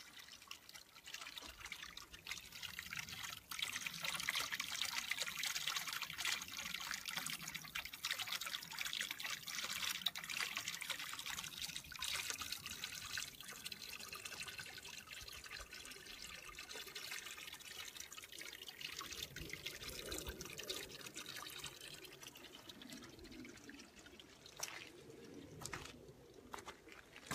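Spring water trickling and pouring steadily from a pipe onto stones. It is loudest over the first half and then fades. A few sharp clicks come near the end.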